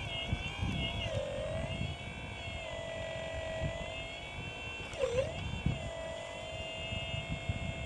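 Remote-controlled scale excavator's motor whining steadily, its pitch sagging briefly about a second in and again about five seconds in, as when the motor comes under load. Irregular low knocks from the machine working underneath.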